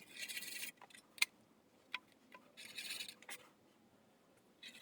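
A marking tool scratching around the edge of a template on sheet metal in two short strokes, with a couple of light clicks in between.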